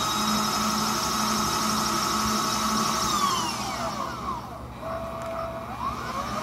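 Servo 150 power feed driving a Bridgeport mill's X-axis table at rapid traverse: a steady, high electric-motor-and-gear whine. About three seconds in, the whine falls in pitch as the feed slows. It holds a low tone for about a second, then rises again near the end as the feed speeds back up.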